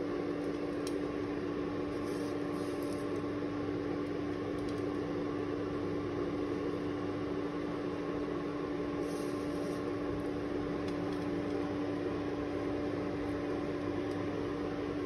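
Steady electric fan hum with a constant low tone. A few faint clicks and scrapes come from a spoon serving fried bitter gourd onto a plate.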